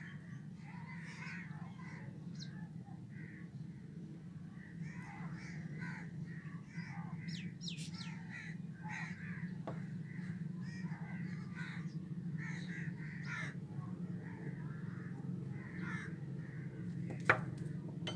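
Crows cawing over and over over a steady low hum. A single sharp knock near the end as the plastic shower is set down on the wooden table.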